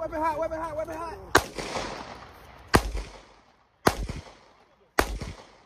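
Four pistol shots fired about a second apart, each sharp crack trailing off in an echo over about a second.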